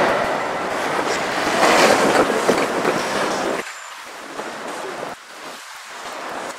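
A passenger train rolling away across a street level crossing: a dense, steady rush of wheel and rail noise that cuts off abruptly about three and a half seconds in. After the cut, a quieter hiss of wind on the microphone.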